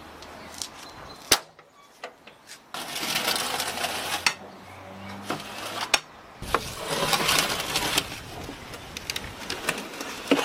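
Sharp metal clanks and scraping at a wood-fired brick oven: the iron oven door is opened and the metal baking tray is dragged forward with a metal hook. The loudest clank comes about a second in.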